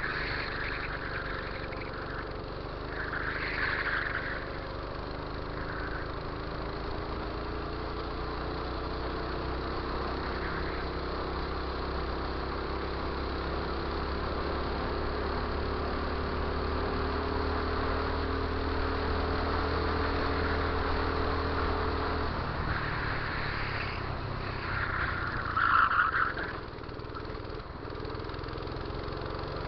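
Go-kart engine heard from onboard, its pitch climbing steadily as the kart accelerates, then falling away about three quarters of the way through as the driver lifts off. A brief loud burst follows near the end. It comes as the kart is forced into the tyre barrier by a kart that has spun ahead.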